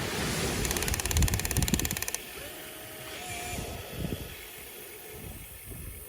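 Small electric gear motor of a toy RC excavator whirring with a fast, even pulse, stopping sharply about two seconds in, with wind buffeting the microphone.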